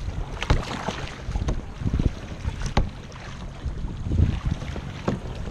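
Kayak paddle strokes and water slapping against the hull of a plastic tandem sit-on-top kayak on the sea, with a low wind rumble on the microphone. Several sharp splashes come at irregular intervals.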